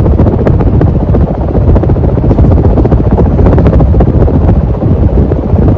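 TroposAir Corsica 53-inch ceiling fan running on high speed, its strong downdraft buffeting the phone's microphone with a loud, steady, rumbling wind noise.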